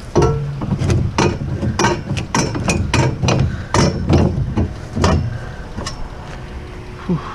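A quick, irregular series of about fifteen hard knocks and clanks, roughly three a second, from things being struck or handled. They stop about six seconds in, and a short downward-sliding tone follows near the end.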